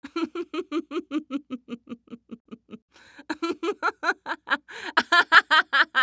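Laughter in quick rhythmic 'ha-ha' pulses: a lower laugh that fades away over the first three seconds, then a higher, brighter laugh that grows louder.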